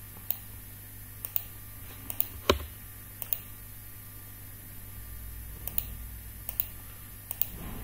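Irregular clicking of a computer keyboard and mouse, about fifteen sharp clicks spread unevenly, over a steady low hum.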